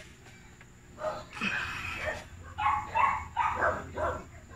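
A dog barking repeatedly, a few short barks a second, starting about a second in, over a low steady hum.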